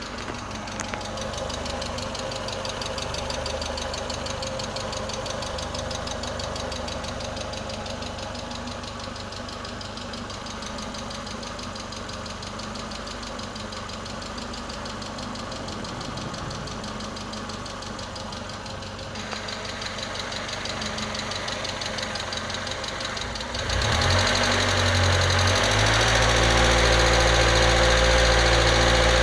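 A Ford Probe 2.0's engine running steadily at idle, with a broad hiss over the engine note. About 24 seconds in it gets louder and deeper. The car is suspected of a vacuum leak at the mass airflow sensor.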